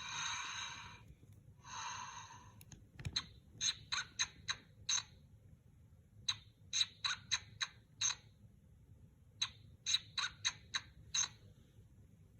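Little Live Pets plush bear toy's small speaker playing two breathy snore sounds, then three quick runs of short, high giggle pulses, five or six pulses in each run.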